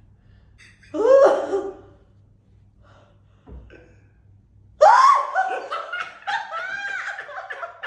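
A short, loud burst of voice about a second in. From about five seconds in, loud laughter with pitch rising and falling.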